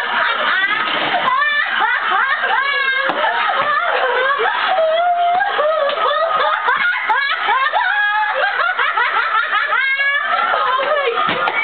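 People laughing hard and without a break: high-pitched, shrieking laughter with quick rises and falls in pitch.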